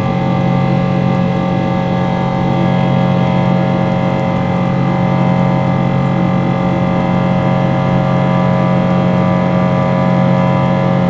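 Boeing 777 jet engines heard from inside the cabin shortly after takeoff: a loud, steady drone made of many held tones, strongest in a low hum. It is a strained, grinding sound that the passenger found louder than ever before and thought did not sound right.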